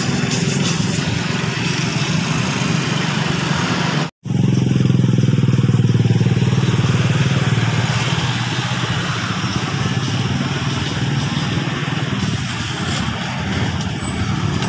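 City street traffic: engines of passing cars and motorcycles running steadily, with the sound cutting out for a moment about four seconds in and a louder engine hum just after.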